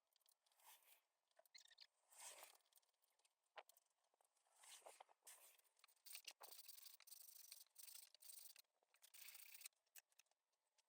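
Near silence with faint, irregular scratchy rubbing and small ticks.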